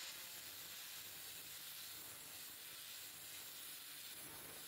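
Angle grinder with a flap disc grinding rust off a steel wrench handle: a steady, even hiss.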